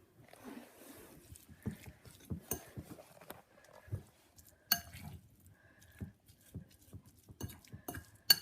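A fork mashing sardines into a paste in a bowl: irregular soft knocks and taps of the fork against the bowl, with two sharper metallic clinks, one about halfway through and a louder one at the end.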